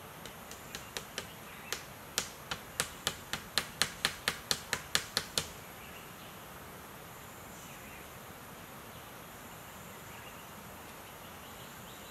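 A run of about twenty sharp clicks or knocks, growing louder and a little quicker, then stopping about five and a half seconds in, over a faint steady outdoor background.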